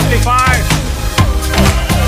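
Background electronic music with a steady drum beat, about four strokes a second, and a short gliding melodic sweep about half a second in.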